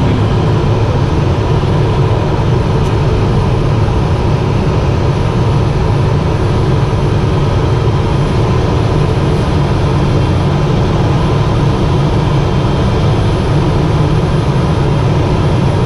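Cessna P210 Silver Eagle's Rolls-Royce turboprop engine and propeller running steadily while the aircraft taxis, heard inside the cabin as a loud, even, low drone.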